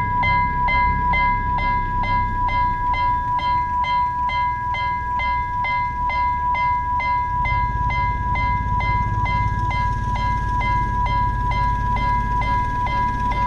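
A level-crossing warning bell rings continuously at about three strikes a second, each strike ringing on. A low rumble underneath grows louder about halfway through.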